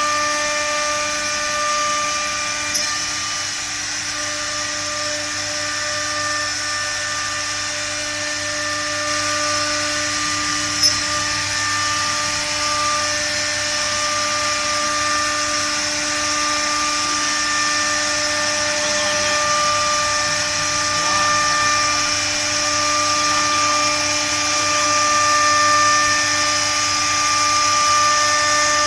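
Three-spindle wood CNC router with air-cylinder spindles, a spindle running with a steady high whine as it cuts a wooden board, over a hiss of cutting noise. A short sharp click about 11 seconds in.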